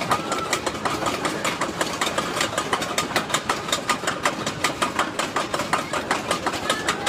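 Roller coaster train clattering along its track: a steady run of quick, sharp clicks, about five or six a second.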